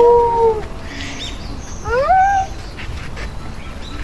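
Dingo howling: a long steady howl that ends about half a second in, then a second howl that rises in pitch and levels off about two seconds in.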